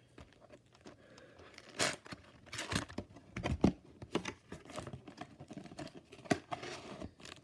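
Plastic wrapping crinkling and tearing as a sealed trading card booster box is unwrapped and opened by hand, in irregular rustles with a few sharp crackles.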